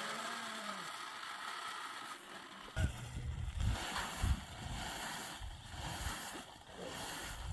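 The contents of a woven plastic sack being tipped and poured into a plastic bucket. From about three seconds in there is rustling with low bumps and thumps as the sack is handled.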